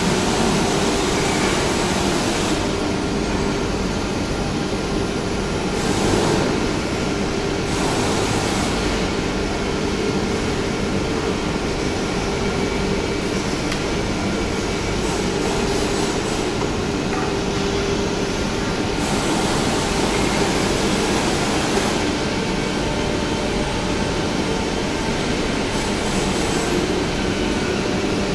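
CNC nesting router running and cutting a board, its spindle noise riding over a steady machine hum. A high hiss from the cut rises and falls several times as the head moves through its passes.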